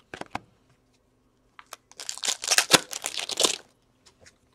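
Upper Deck hockey trading cards being handled and slid through the hand: a few light clicks, then about two seconds of crinkling and rustling.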